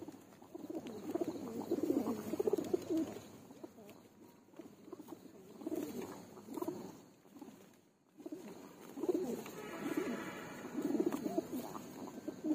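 Male Giribaz pigeons cooing in a crowded wooden crate: low, rolling coos from several birds overlap and repeat, with a short lull about eight seconds in.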